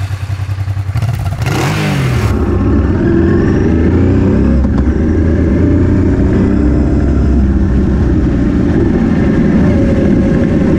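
Motorcycle engine revving up from a pulsing, uneven beat in the first second into a steady, hard-running drone as the bike rides along. About a second and a half in there is a brief loud rush of noise with a falling sweep.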